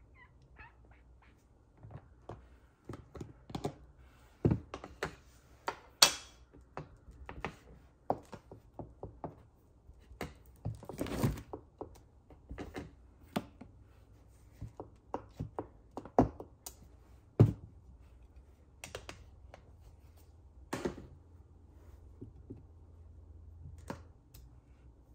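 Paper-crafting handling sounds: an irregular run of taps, clicks and thunks as card stock, paper pieces and craft tools are picked up and put down, with a brief rustle about ten seconds in.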